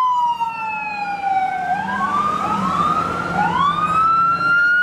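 Police car siren wailing: a tone slides slowly down, then several overlapping rising sweeps wind it back up to a high held pitch.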